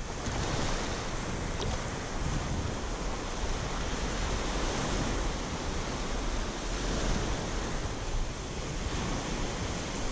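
Small ocean waves breaking and washing up onto a sandy beach, with wind buffeting the microphone as a low rumble.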